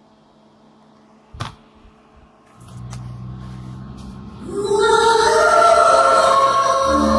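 A sharp click about a second and a half in, then a low hum from the speakers, and about four and a half seconds in a film song's music starts loudly with held tones, played from a portable DVD/MP5 player through an amplifier and speakers.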